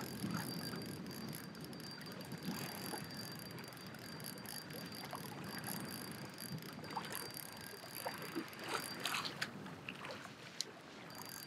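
Water rushing and slapping along a kayak hull as it moves through choppy waves under its electric trolling motor, with a thin steady high whine that stops about nine seconds in. A few sharp clicks follow near the end.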